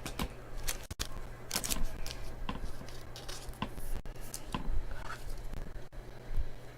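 Football trading cards and their packaging being handled: scattered short scrapes, taps and rustles of card and plastic, over a low steady hum.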